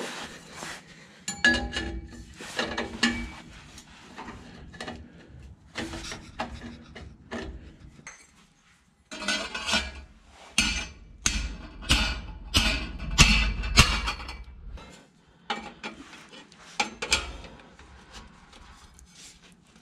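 Metal clanking and knocking from tools and exhaust hanger hardware while a hanger is fitted under a pickup, with a run of sharp strikes, about two a second, a little past the middle.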